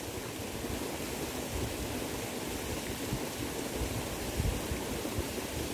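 Wind buffeting the microphone outdoors: a steady rushing hiss with uneven low rumbles that rise and fall.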